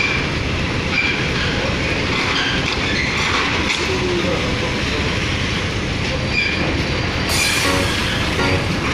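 Steady, loud rumble of a car ferry's engines under way, with a few brief high squeaks.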